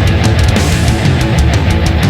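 Background music: loud heavy rock with distorted guitar and a steady drum beat.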